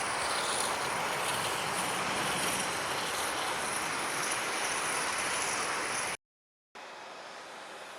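Jet airliner engines running, a steady roar with a thin high whine over it. About six seconds in the sound cuts off sharply, and after half a second of silence a quieter, even rushing noise follows.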